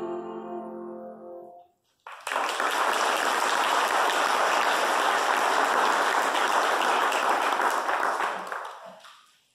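The last held notes of a song with piano die away, and after a short gap a congregation applauds, steady for about six seconds before fading out.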